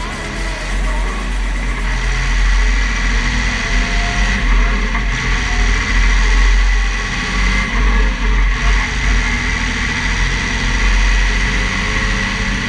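Massey Ferguson 6465 tractor's diesel engine running steadily as the tractor drives along a road, with a steady high-pitched whine over the engine note.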